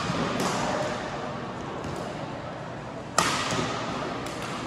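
Badminton rally: a racket strikes the shuttlecock several times with sharp cracks, the loudest about three seconds in, each hit echoing in a large hall.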